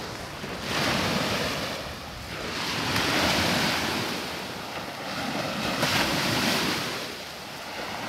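Small sea waves breaking and washing up a sandy beach, the surf swelling and fading three times.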